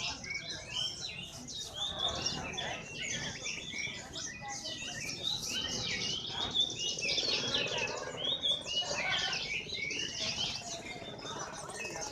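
Many caged songbirds chirping and singing at once: a dense, unbroken chorus of overlapping high chirps and warbles.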